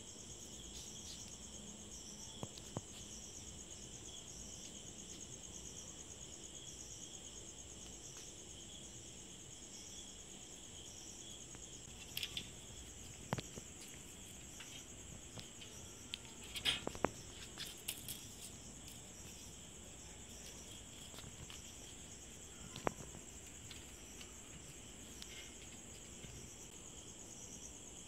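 A steady, faint night chorus of crickets trilling high and continuously. A few sharp clicks and taps break in about halfway through and once more later.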